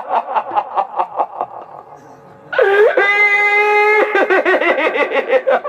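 A performer's amplified voice cackling in a villain's laugh for the demoness of a Chhau drama, a quick run of ha-ha-ha pulses. About two and a half seconds in it breaks into a long held high cry, then goes back to rapid laughter.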